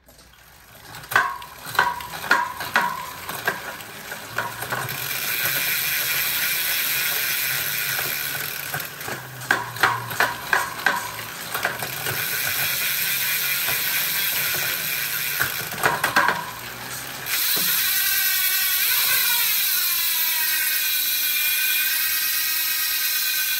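Bicycle drivetrain turned by hand on a workstand: the chain runs over a single 1x chainring and the rear cassette, with several clusters of clicks while the cranks are turned. About seventeen seconds in, the cranks stop and the rear hub's freewheel buzzes steadily as the wheel coasts, its pitch slowly falling as the wheel slows.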